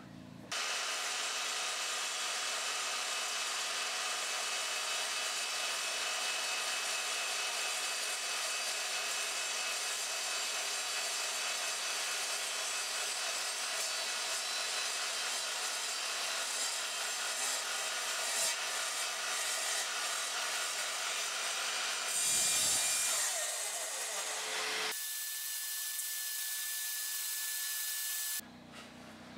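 Evolution Rage 3 sliding mitre saw cutting through a 10 mm aluminium plate, its multi-material blade grinding steadily through the metal for about twenty seconds. Near the end a vacuum cleaner sucks up the swarf, running sped up with a steady whine.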